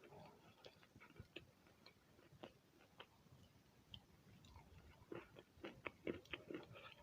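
Wet chalk being bitten and chewed: quiet, scattered crunches and crackles that come thicker in the last two seconds.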